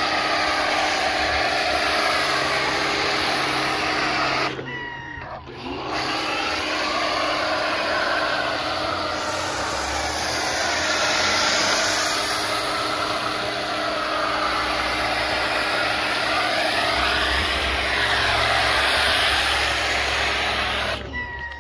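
Chemical Guys pressure washer rinsing foam off a car: the water jet hisses against the paint, wheel and pavement over the steady hum of the washer's pump motor. About four and a half seconds in, spraying and motor stop for a second or so, then start again, and both cut off near the end.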